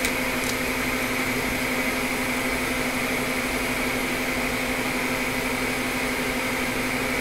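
Steady fan or blower hum with a constant pitched tone in it, unchanging throughout.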